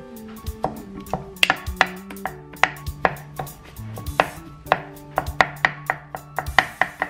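Wooden spatula mashing boiled potatoes in a stainless steel pot, knocking against the pot in quick, irregular strokes, about four a second.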